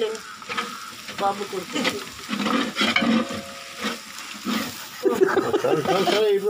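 Long metal spoon stirring and scraping small onions and whole spices around a large aluminium pot, with oil sizzling as it fries.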